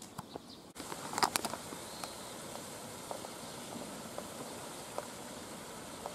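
Steady outdoor background hiss, such as wind or distant traffic, with a short cluster of clicks about a second in and a few faint ticks after.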